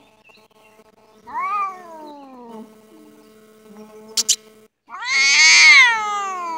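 Domestic cats in a face-off yowling: a long call that rises and falls about a second and a half in, then a louder, longer yowl near the end. Two short sharp clicks come just before the loud yowl.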